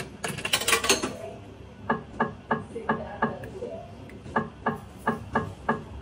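Video slot machine's reel-spin sound effect: a steady run of short clicks, about three a second. In the first second there is a denser burst of metallic clatter as a coin is inserted.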